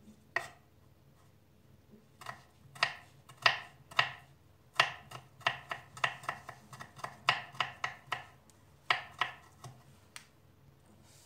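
Kitchen knife finely chopping garlic cloves on a wooden cutting board: a run of sharp, irregular knocks of the blade on the board, about two to three a second, stopping near the end.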